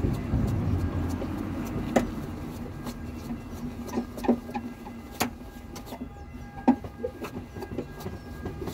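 Car scissor jack being cranked by hand under a Fiat Panda: scattered metallic clicks and knocks over a steady low hum.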